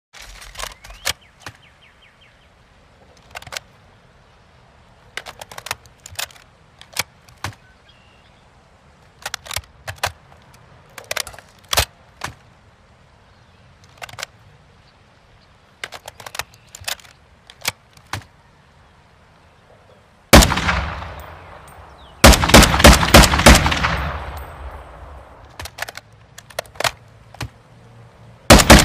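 Rifle sound effect. Scattered sharp single clicks come first, then a single loud shot with a long fading tail about twenty seconds in, followed by a rapid burst of about eight shots. A few more clicks follow, and rapid automatic fire starts near the end.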